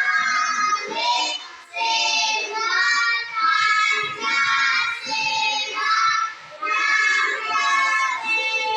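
A child's voice singing a song in long held phrases.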